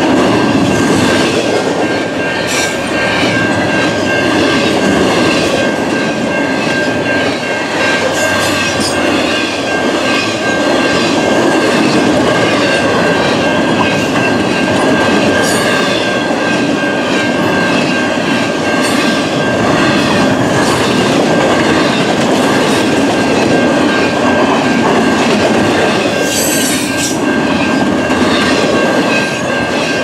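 Loaded double-stack intermodal container cars rolling past close by, with a steady rumble and clatter of wheels on rail. Short high wheel squeals come in about 8, 15 and 26 seconds in, over a constant high tone.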